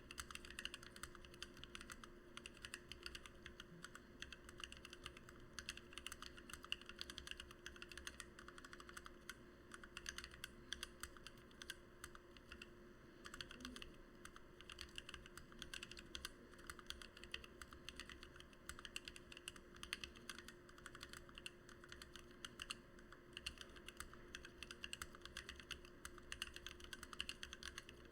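Continuous fast typing on a mechanical keyboard with lubed and filmed Gateron Black Ink V2 linear switches and PBT OEM-profile keycaps: a dense, uneven stream of soft keystroke clacks.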